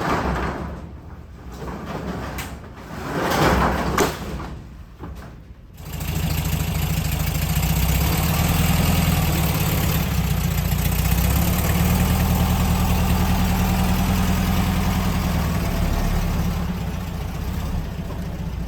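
An engine starts suddenly about six seconds in and runs steadily, after a few seconds of irregular whooshing noise.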